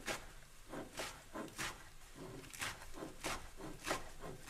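A kitchen knife knocking on a wooden cutting board as finely chopped fenugreek and cilantro are chopped and gathered: about six short, sharp knocks at an uneven, unhurried pace.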